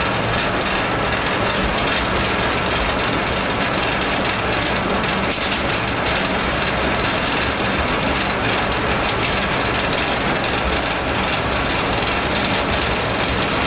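Machinery of a continuous tyre pyrolysis plant running: electric motors driving blower fans and a discharge conveyor make a steady industrial din with a low hum.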